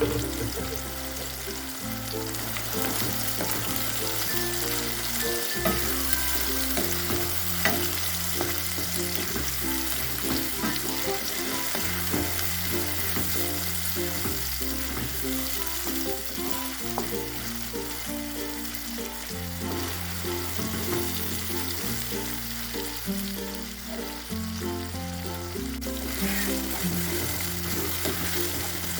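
Sambal paste of ground red chillies, shallots, garlic and tomato sizzling as it fries in oil in a pan, with a few sharp ticks of stirring. Background music plays throughout.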